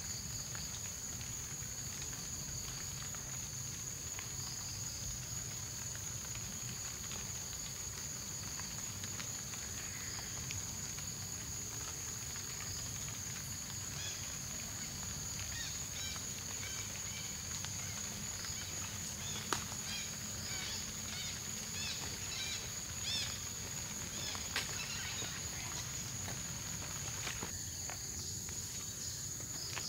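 Forest insects, crickets among them, keep up a steady high drone. From about halfway through, a run of short chirps repeats roughly once a second, and a single sharp click is heard about two-thirds of the way in.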